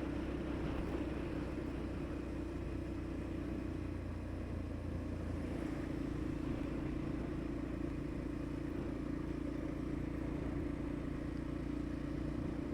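Motorcycle engine running at a steady cruising speed while being ridden: an even, low drone with no changes in revs.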